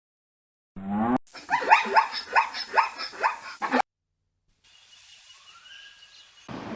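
An equid's braying call: a string of about seven harsh, rhythmic cries, each sliding in pitch, that cut off abruptly.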